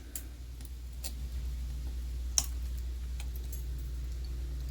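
A few sharp clicks of end nippers snipping off the protruding ends of steel hot staples set in plastic, the loudest about two and a half seconds in, over a steady low hum.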